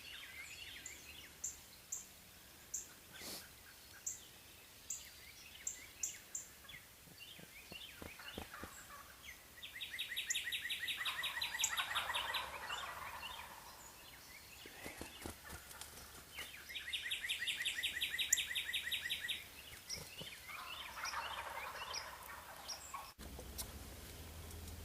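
Wild turkey gobbling twice, each gobble a rapid rattle lasting about two seconds, with small songbirds chirping in the background.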